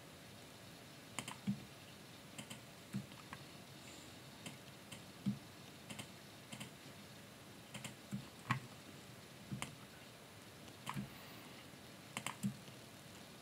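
Computer keyboard keys clicking faintly and irregularly, single presses and short clusters about a second apart, as shortcut keys are pressed while painting in Photoshop.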